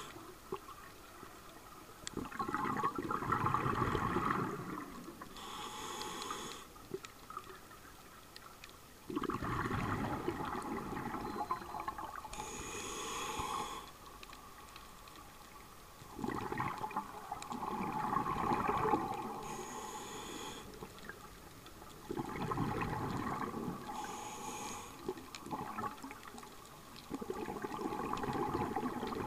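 Scuba diver breathing through a regulator underwater. Each breath is a short hissing inhale through the demand valve followed by a longer bubbling exhale. The cycle repeats about every six to seven seconds.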